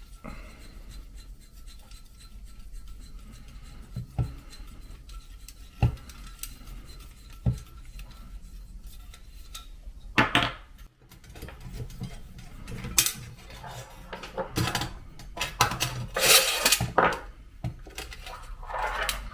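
Metal parts of a sheet-metal camp stove and its gas burner being handled and taken apart on a wooden tabletop. A few light knocks come in the first half, then clinking and scraping of metal on metal, louder and busier from about halfway through.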